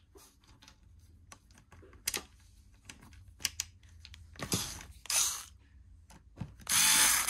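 Light clicks and taps of a screw being fitted by hand into a Dyson laser head's plastic housing, then near the end a cordless electric screwdriver whirs steadily, driving the Torx screw in.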